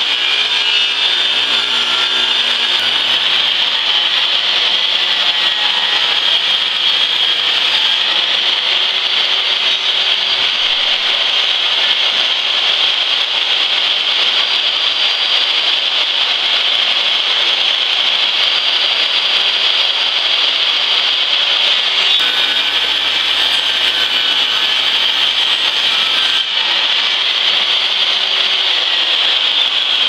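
Portable jobsite table saw running steadily, its blade ripping a long board lengthwise.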